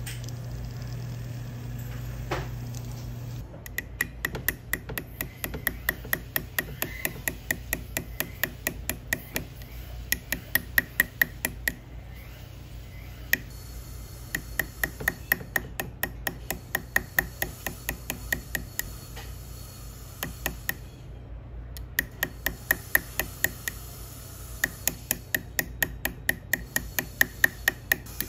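A rotary jeweller's handpiece with a burr runs steadily on the gold for the first few seconds. Then a steel graver cutting and raising beads for pavé diamond setting ticks sharply with each stroke, about three or four ticks a second, pausing briefly now and then.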